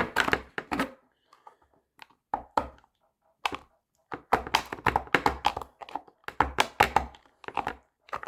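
Serrated knife blade push-cutting through hard plastic: runs of sharp clicks and cracks as the serrations bite into the material, stroke after stroke with short pauses between.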